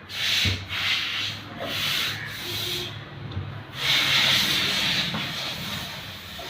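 Plastic parts of a car's in-tank fuel pump assembly rubbing and scraping as the pump is worked out of its housing, in a series of strokes with the longest about four seconds in.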